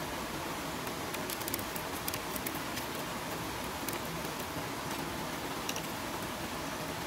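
Thin bamboo strip rustling and clicking as it is wrapped and knotted around bamboo poles, with scattered small crisp clicks, most in the first half, over a steady hiss.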